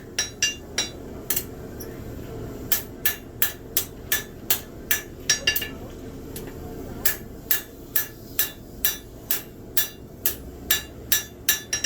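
Hand hammer striking hot steel on an anvil, forging a knife blade: a run of sharp, ringing blows about two to three a second, with a pause of about a second and a half midway.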